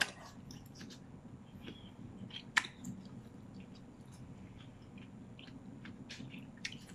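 A person chewing food close to a microphone: faint mouth sounds with scattered small clicks, including one sharper click about two and a half seconds in, as a fork works in a bowl.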